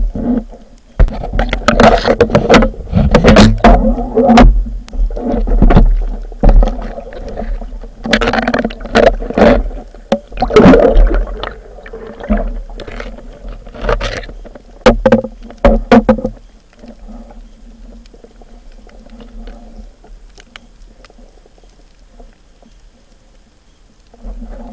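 Water rushing and bubbling around an underwater action camera's housing as a diver swims up to the surface, in irregular loud surges for about the first sixteen seconds, then a quieter low rumble.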